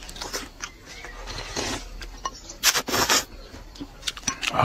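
Close eating sounds as meat is bitten and chewed off a goose leg: wet lip smacks and mouth clicks, with two louder sucking slurps about a second and a half and three seconds in.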